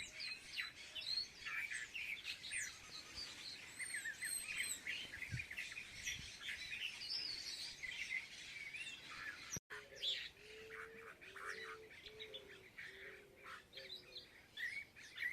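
A flock of birds chirping and twittering in quick, overlapping calls. After a brief break a little past halfway, a low call repeated in short notes joins the chirping.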